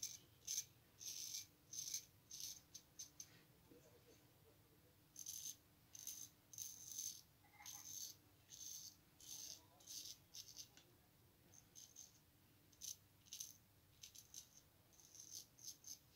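Hanover kamisori-style straight razor scraping through lathered stubble on the jaw and neck in short strokes. The strokes come one or two a second, in runs with brief pauses between.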